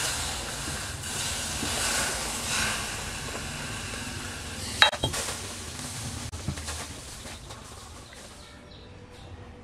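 Liquid poured from a bottle onto a freshly welded steel joint, hissing and sizzling as it boils off the hot metal. There is a single sharp metallic clink about five seconds in, and the hiss dies away toward the end.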